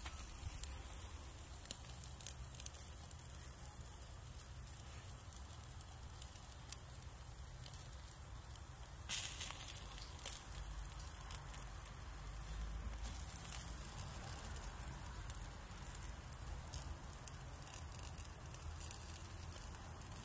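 Chicken wings sizzling over glowing charcoal on a kettle grill: a steady hiss dotted with small crackles and pops, over a low rumble. A brief louder rustle about nine seconds in.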